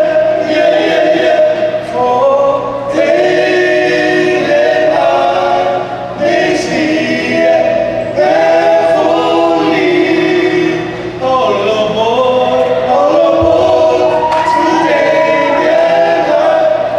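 Group of young men singing a slow song together in close harmony into microphones, holding long notes in phrases separated by short breaths.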